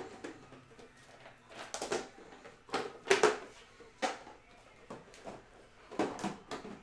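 A handful of irregular knocks and rustles, as of objects being moved and handled, spaced about a second apart, the loudest about three seconds in.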